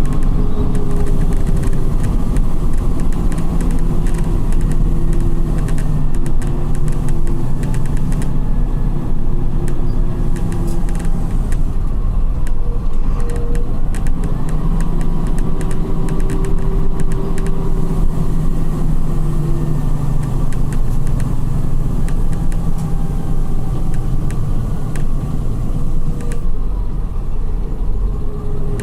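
Volkswagen 17.230 EOD bus engine and ZF gearbox running under way, a steady engine note with a higher gear whine that shifts in pitch and drops out at several points.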